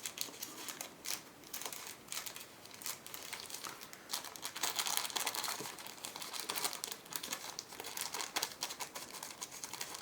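Packaging of spare in-ear-monitor ear tips being opened and handled by hand: irregular crinkling with quick clicks and rustles, busiest around the middle.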